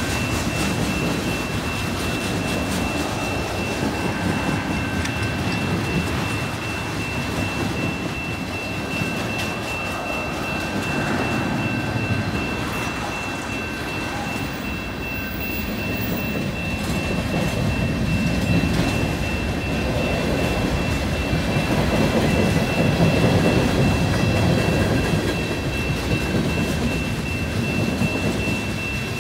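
Freight train cars, covered hoppers and tank cars, rolling over a road grade crossing with a continuous rumble of wheels on rail that swells louder in the second half. A thin, steady high tone runs under the rumble throughout.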